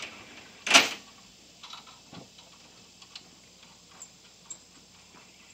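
One sharp, loud knock about a second in, then scattered light clicks and taps from work on a tractor.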